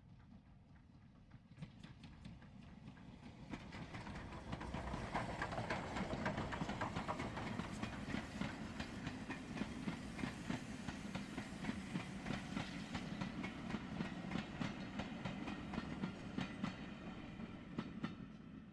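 A train passing at a distance, its wheels clicking over the rail joints: the rumble builds over the first few seconds, holds, then fades near the end.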